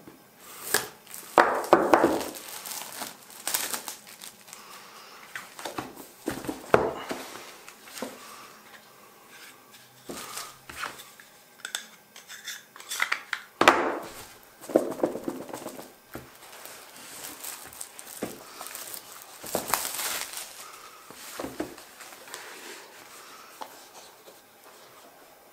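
Clear plastic shrink-wrap on a tablet box being sliced with a curved knife blade and peeled off by hand, crinkling and tearing in irregular bursts that die down near the end.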